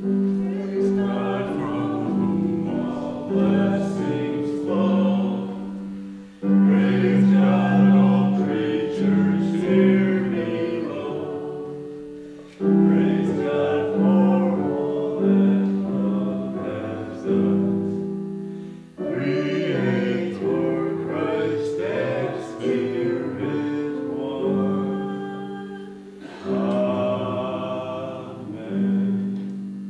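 Church offertory music: voices singing with instrumental accompaniment, in phrases of about six seconds that each begin afresh after a brief dip.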